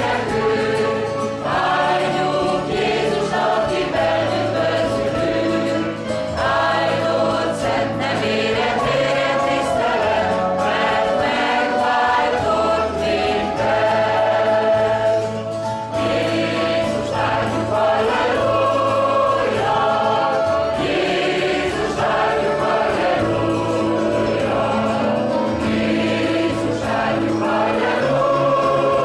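Mixed choir of men and women singing a Hungarian hymn, continuous and full-voiced over sustained low accompanying notes.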